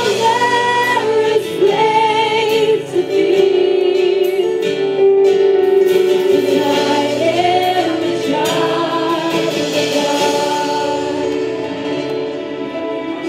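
Women singing a praise and worship song with acoustic guitar accompaniment, getting gradually quieter near the end.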